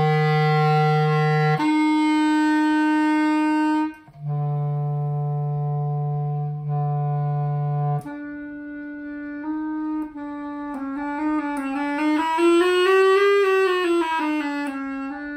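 Boosey & Hawkes Edgware wooden B-flat clarinet, a wide-bore model from 1955/56, playing long held notes: a low note that leaps up an octave, the low note again, then the upper note. Near the end comes a quick run of notes that rises and falls. The leaps test whether its tuning holds steady.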